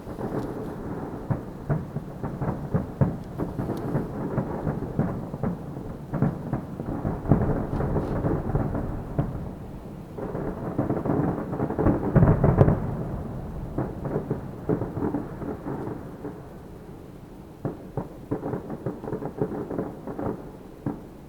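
Aerial fireworks shells bursting in quick succession, a dense rolling rumble of bangs and crackles. It builds to its loudest about twelve seconds in, thins out, then picks up again with another flurry near the end.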